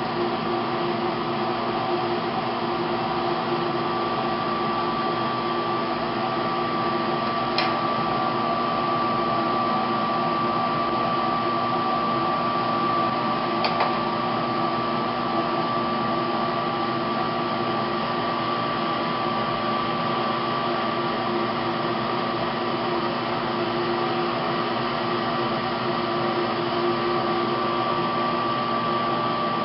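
Steady whirring hum of an electric fan or blower motor, a thin whine held over lower droning tones at an even level. Two faint clicks come about a quarter and about half of the way through.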